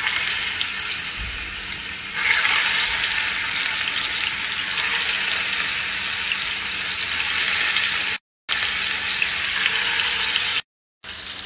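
Pieces of seasoned fish frying in hot olive oil in a frying pan: a steady sizzle that grows louder about two seconds in as more pieces go into the oil. The sound drops out briefly twice near the end.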